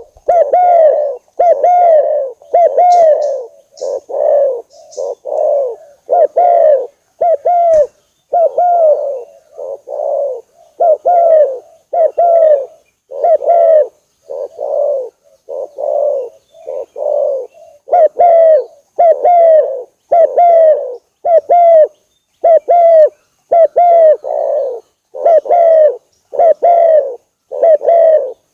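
Spotted dove (tekukur) cooing: a long unbroken series of short coos, each one arching up and dropping in pitch, about one a second.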